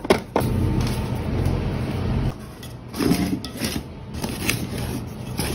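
A steady rumbling noise runs for about two seconds and stops abruptly. Then come scattered soft knocks and rustles as pizza dough is handled and pressed into a metal pan.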